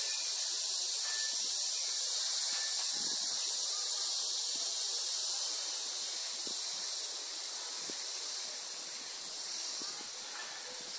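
Steady high-pitched hiss with no speech, music or cat sounds, and a few faint short peeps in it.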